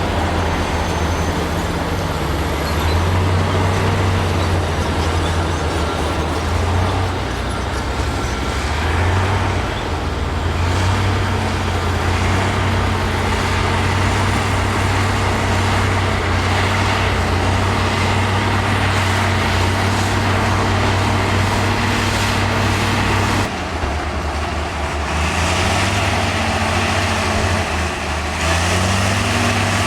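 Heavy diesel engine of earthmoving machinery running under working load, its note stepping up and down as the throttle changes. About two-thirds of the way through it drops suddenly, then revs back up near the end.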